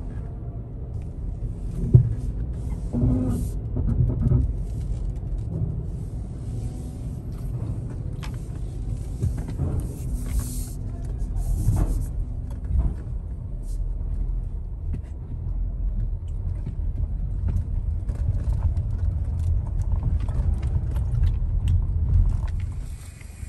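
Car driving off a ferry, heard inside the cabin: a steady low rumble of engine and tyres, with a sharp knock about two seconds in and more clunks over the next few seconds as the wheels cross the ferry's ramp.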